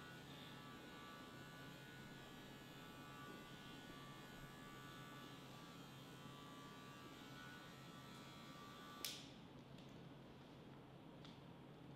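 Handheld electric hair clipper running with a faint, steady buzz, switched off with a click about nine seconds in.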